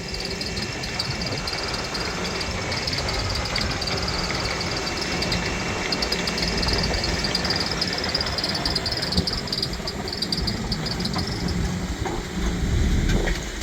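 Buick Enclave's 3.6-litre V6 running with a steady hiss and a high, warbling whine over a low rumble, the unexplained "funny noises". The whine fades out near the end.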